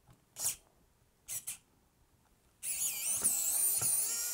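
Wow Stick electric precision screwdriver running as it unscrews a small side screw from a camera's metal top plate: a high, wavering whine that starts about two and a half seconds in and carries on. Two short clicks come before it.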